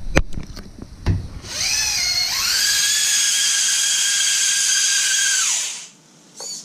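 Axial Capra 1.9 RC rock crawler's electric drive motor whining as it drives: the whine rises in pitch over about a second, holds steady for around three seconds, then drops away as it stops. A few sharp knocks come first.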